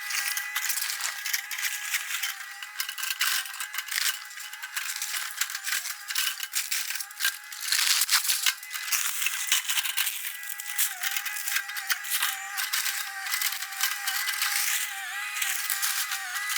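Demolition sound played fast, as in a time-lapse: the excavator's engine comes through as a steady, slightly wavering whine, under a dense, continuous rattle and crackle of breaking debris.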